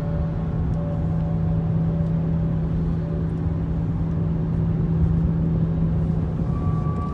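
Steady low drone of a car driving at road speed, heard from inside the cabin: engine and tyre rumble with a constant low hum.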